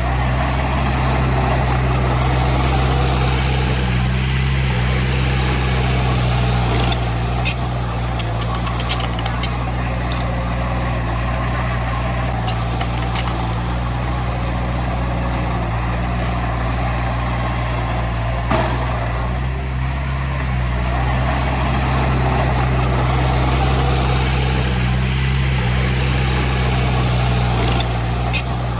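Diesel engine of heavy earthmoving machinery running steadily at a constant pitch, with scattered metallic clicks and rattles.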